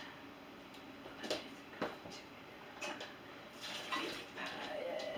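Dishes being handled and loaded into a dishwasher: a few light clinks and knocks, spaced out, over a faint hiss.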